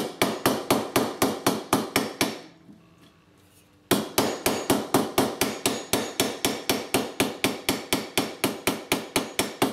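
Claw hammer lightly tapping the pressed-tin body of a toy car, hammering out dents to bring the metal back into shape. The taps come in quick, even runs of about four a second, with a pause of about a second and a half near the middle.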